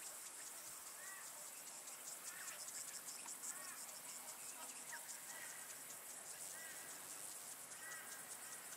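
Faint outdoor insect chorus: a steady, high, rapidly pulsing shrill, with short chirping calls now and then.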